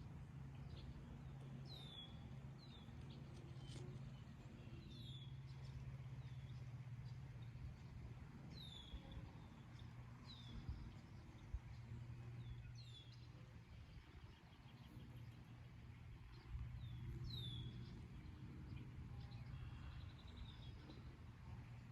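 A songbird giving short, high chirps that fall in pitch, repeated every second or two, over a faint steady low hum.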